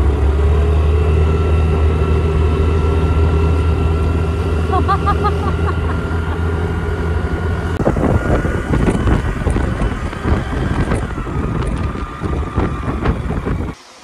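Motor scooter ridden along a road with two aboard: its engine drones steadily while wind buffets the microphone, getting gustier and rougher about halfway through.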